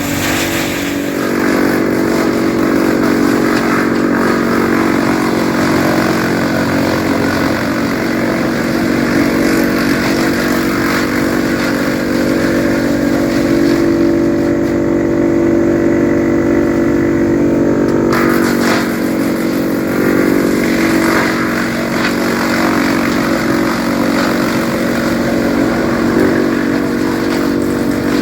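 Tractor engine running steadily under load, driving a TOMCAT M4250AFP PTO wood chipper as it chips citrus prunings, with a few brief noisier stretches about two-thirds of the way through.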